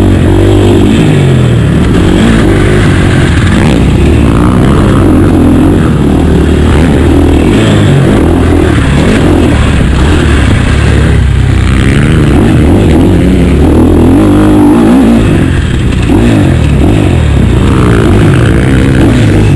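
Two-stroke motocross bike engine heard up close from its own rider's position, revving hard and dropping off over and over as the rider accelerates, shifts and backs off through the track.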